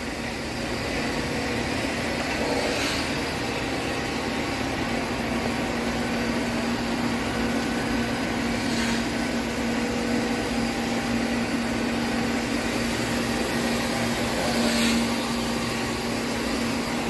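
Perfect PFG-7020 surface grinder running under power: a steady hum with one constant tone, and a faint tick about every six seconds.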